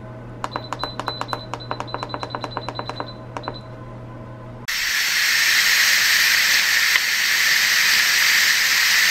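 Instant Pot IP-LUX control panel beeping in a rapid run of short beeps as the button is pressed repeatedly to set the cooking time. About halfway through, a sudden loud, steady hiss of steam venting from the pressure-release valve: the quick release at the end of cooking.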